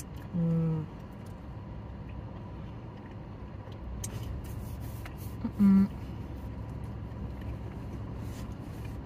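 Two short "mmm" hums of enjoyment from a woman eating a doughnut, one about half a second in and a louder one about five and a half seconds in, over a steady low rumble inside a car.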